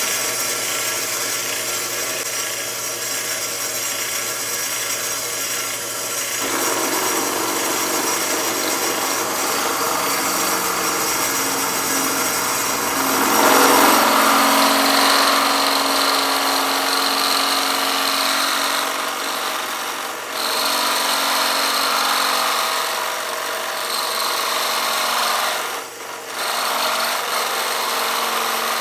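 Drill press running steadily while its bit cuts holes through a steel mounting plate, the sound shifting as the bit bites in. It dips briefly twice in the second half.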